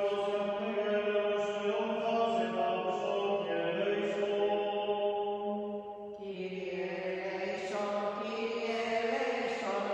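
Byzantine chant: a single voice chanting a slow melody of long held notes that step up and down, with a short break about six seconds in before a new phrase begins.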